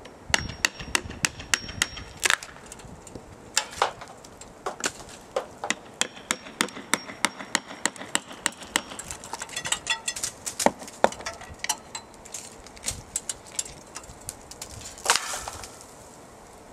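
A tool striking wood in rapid, irregular sharp knocks, several a second, with one louder strike near the end: chopping or chiselling into the tree trunk around a wild honeybee hive to open it up.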